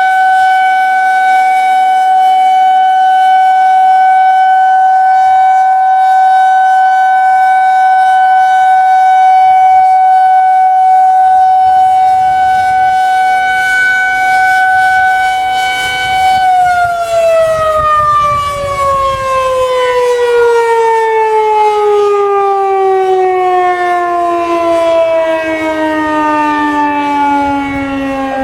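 Federal Signal 2001-SRNB outdoor warning siren sounding its steady alert tone during a test, then, a little past halfway, shutting off and winding down, its pitch falling smoothly and steadily.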